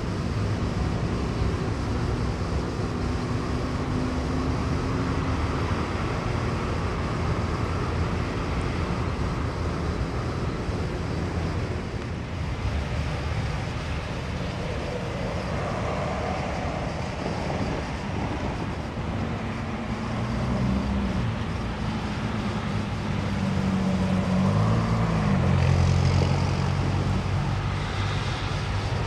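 Steady low engine rumble with a running outdoor background. In the second half an engine note rises and falls twice, loudest near the end.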